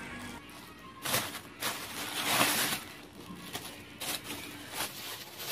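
Thin plastic carrier bag rustling and crinkling in several short scrunches as it is handled. The longest and loudest comes a little past two seconds in.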